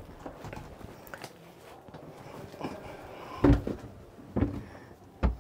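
Wood-panel interior door of a motorhome being swung and pushed by its handle: a few light clicks, then three sharp knocks in the second half as it bumps and latches.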